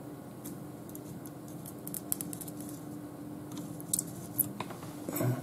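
Faint scratching and ticking of a solder-well soldering tip being dragged along the pins of an SMD chip, over a faint steady hum.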